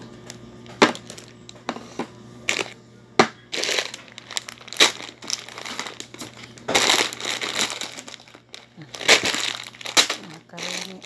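Plastic grocery packaging crinkling and rustling as it is handled, with a few sharp clicks in the first three seconds and longer bursts of crinkling after that.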